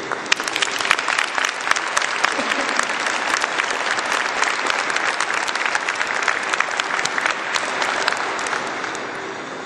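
Audience applauding. The clapping starts right away, holds steady, and dies down near the end.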